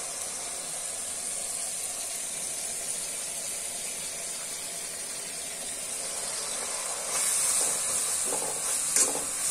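Onions and green chillies sizzling steadily in a pot as ground cumin, garlic and ginger paste is added, the frying growing louder about seven seconds in, with a spatula clink against the pot near the end.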